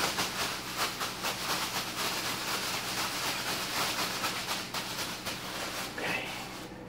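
Plastic bag rustling and crinkling as fries and seasoning salt are shaken inside it, a rapid repeated shaking that stops near the end.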